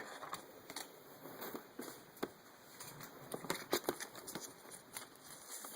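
Faint, scattered clicks and rustles of Pokémon trading cards being handled.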